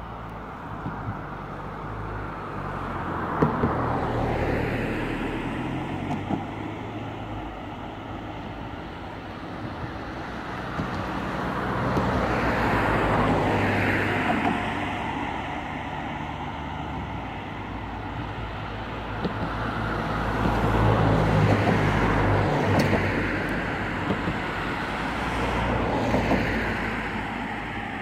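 Road traffic crossing the bridge: cars passing one after another, their tyre and engine noise swelling and fading about four times, with a few short sharp knocks.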